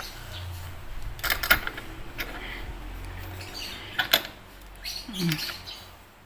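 Hard plastic clicks and rattles as a small tripod phone and microphone holder is handled and its head adjusted, with sharp clicks about a second and a half in and again around four seconds. A brief hum of a voice comes near the end.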